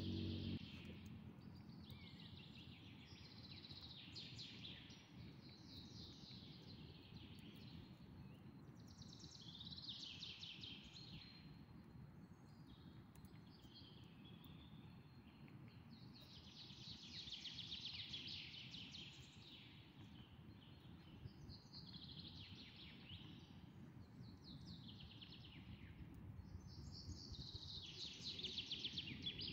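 A songbird singing over and over, each song a quick falling phrase coming every two seconds or so, faint over a low steady background hiss.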